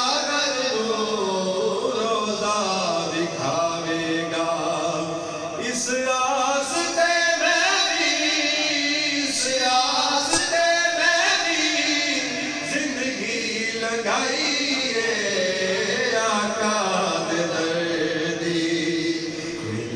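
A man singing a Punjabi devotional kalam (naat) unaccompanied through a microphone and PA, in long held notes that waver and bend up and down.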